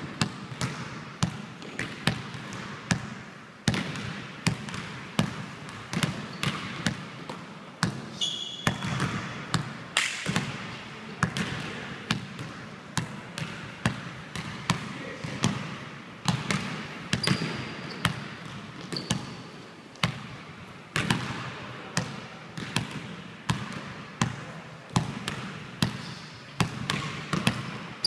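Basketball being dribbled on a hardwood gym floor, about one to two bounces a second with short pauses, each bounce echoing in the gym. A few brief high squeaks come in between.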